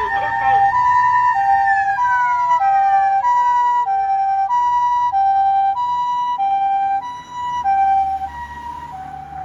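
Japanese ambulance two-tone electronic siren alternating high and low notes, about two-thirds of a second each. For the first few seconds a mechanical motor siren's held wail runs alongside it, then glides down in pitch and dies away as the motor spins down.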